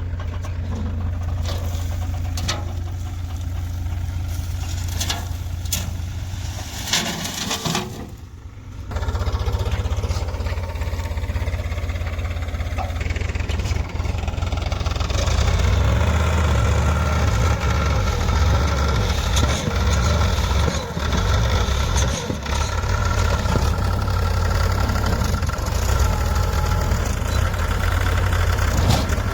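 Diesel engine of heavy farm machinery running steadily, with a brief drop in level about eight seconds in and a louder, fuller sound from about halfway on.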